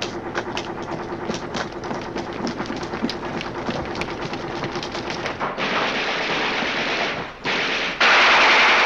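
Scattered gunshots from a film soundtrack: many sharp, irregular cracks over a steady hum. About five and a half seconds in they give way to a loud rushing hiss, which breaks off briefly and returns louder near the end.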